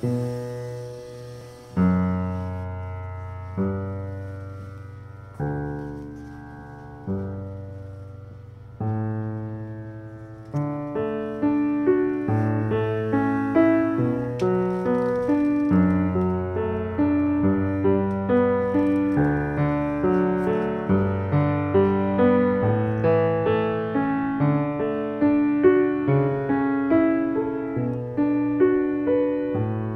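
Piano music: slow, held chords struck about every second and a half, then from about ten seconds in a fuller, faster-moving passage with several notes a second.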